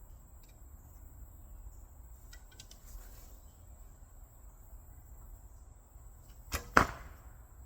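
A recurve bow being shot near the end: two sharp snaps close together, the second much the loudest, as the arrow is loosed and strikes the target. A faint, steady high insect drone runs underneath.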